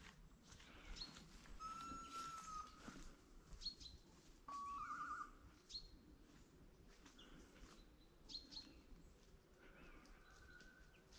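Faint, short, high chirps from small woodland birds, scattered throughout, with a few steady whistled tones: one about two seconds in, and a louder one about halfway through that breaks into a warble.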